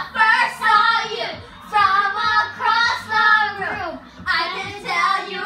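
Young girls singing along loudly, in high voices, phrase after phrase with short breaths between.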